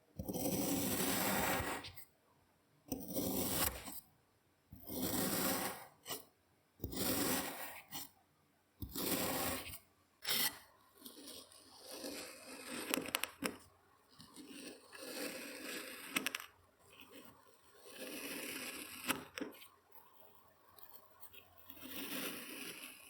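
Kinetic sand being crushed and cut: a series of separate crunching, tearing strokes about a second or two long with short pauses between them, then from about ten seconds in a quieter, more continuous scraping with small clicks.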